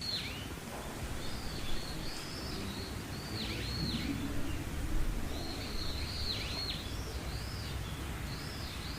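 Birds calling with repeated short swooping notes, some dipping down and back up and some arching, over a steady low outdoor background noise.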